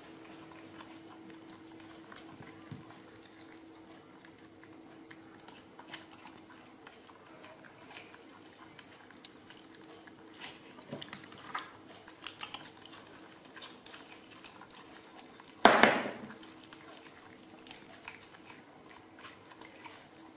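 Baby macaques chewing jackfruit: faint, scattered smacks and clicks over a steady low hum. One short, loud noise about three-quarters of the way through.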